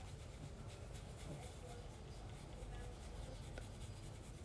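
Faint scratchy rubbing of makeup being blended on the face, over a low steady room hum.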